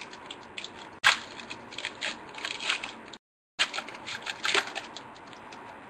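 Trading card pack wrapper being torn open and crinkled by hand, a run of crackles and rustles with a sharp rip about a second in. The sound cuts out completely for a moment a little past the middle.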